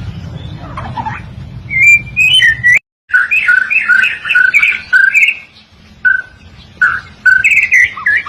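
White-rumped shama (murai batu) singing quick, varied whistled phrases. The sound cuts out completely for a moment about three seconds in, and a low hum under the song stops there.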